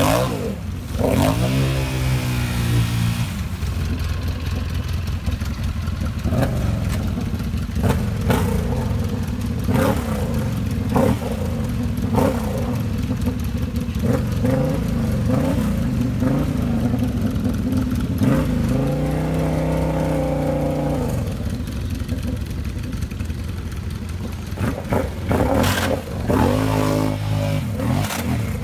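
Off-road ATV engine running and revving up several times, with its pitch climbing sharply near the start, again midway through and near the end. Short clanks and knocks come in between the revs.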